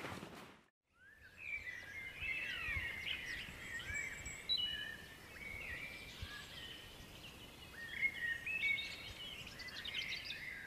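Woodland birdsong: several birds singing with quick, short, gliding notes over a faint background hiss, coming in about a second in after a brief silence.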